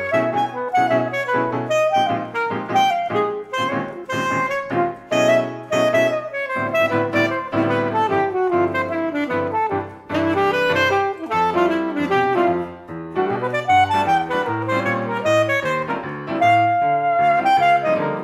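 Alto saxophone and piano playing a jazz duo: the saxophone plays a busy line of quick notes over piano chords, with a short break in the sound about ten seconds in.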